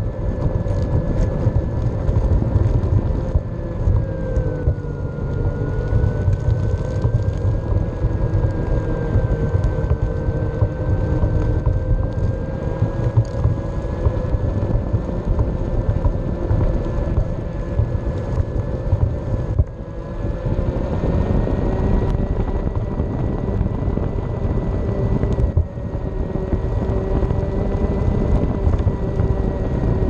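A ridden board rolling on a concrete path: a steady low rumble from the wheels with a whine that dips twice and then rises as the speed changes.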